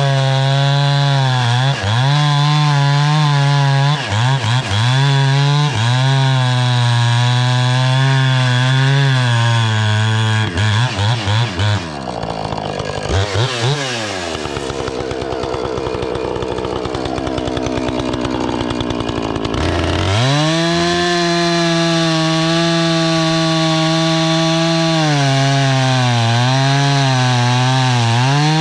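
Two-stroke chainsaw running at high revs and cutting wood with a dull chain, its engine speed wavering under load. About halfway through the revs fall away for several seconds, then climb back to full speed.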